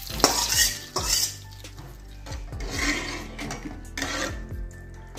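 Spatula stirring buttermilk in a kadai, scraping the pan and knocking against it in repeated clinks.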